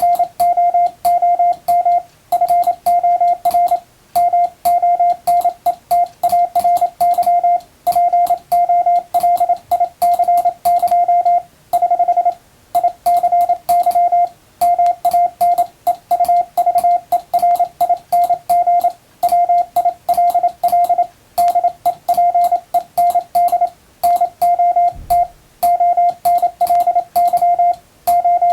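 Morse code tone sent with an electronic keyer at a fast speed: a steady beep near 700 Hz keyed into rapid dots and dashes, grouped into letters and words by short gaps, with a faint click at each keying. About twelve seconds in, one longer unbroken tone sounds.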